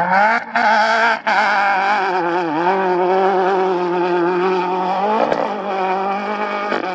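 Off-road race vehicle's engine revving hard under full throttle. It climbs in pitch with two brief throttle lifts in the first second or so, then holds a steady high pitch that wavers slightly.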